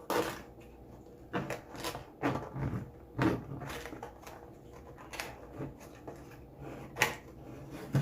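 Scattered knocks and clicks of leftover take-out food being handled and packed away, as a container is fitted shut; the sharpest click comes about seven seconds in.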